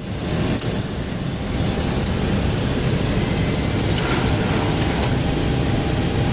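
Steady rushing cockpit noise of a Boeing 727 on final approach with gear down and flaps at 30: airflow and the three JT8D turbofans, growing a little louder in the first couple of seconds.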